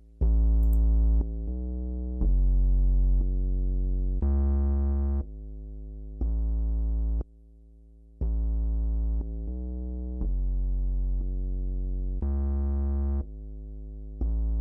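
A prepared synth bass clip playing one sustained bass note about every second, the notes switching between loud and much quieter levels, with a brief near-silent gap midway. The clip runs through a compressor whose threshold is being lowered, taking a little gain off the loudest notes.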